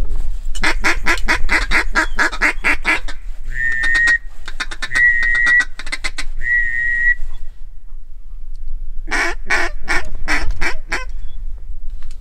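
Mallard duck calls blown by hunters. First comes a long fast run of quacks, about seven a second, then three short steady whistle notes, then a slower run of five or six quacks near the end.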